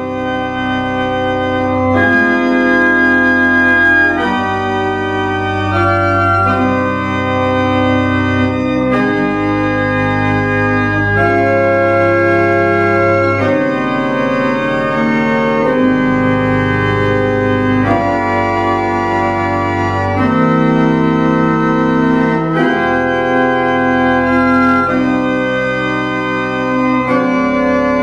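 1892 Gustav Raßmann pipe organ, one manual with pedal and seven stops, played loudly: full held chords changing every second or two over a deep bass line.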